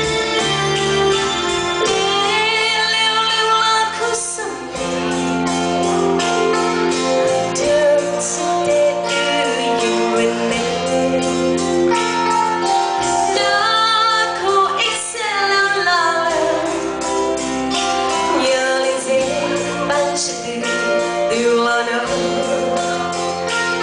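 A woman singing a song into a microphone with keyboard accompaniment.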